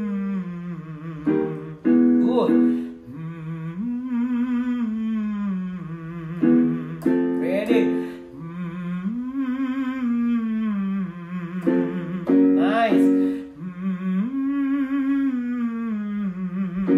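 Male voice humming a short scale that rises and falls, as a vocal resonance warm-up, repeated three times with each pattern set a little higher. Short keyboard chords give the starting notes between repetitions.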